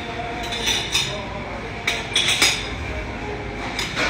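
Dishes and cutlery clinking in three short clusters of sharp clatters, over a steady background of murmuring voices.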